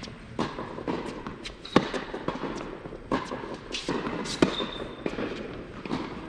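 Tennis rally on an indoor hard court: the ball is struck by rackets and bounces on the court again and again, echoing in the hall. The two loudest hits come about two seconds in and about four and a half seconds in.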